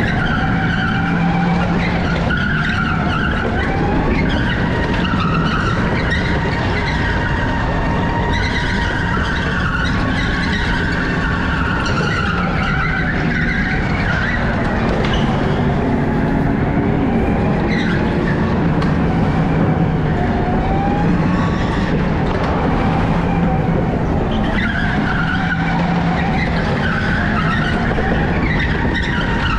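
Electric go-kart driving fast on an indoor track, heard from on board: a steady motor hum with tyres squealing and skidding through the corners.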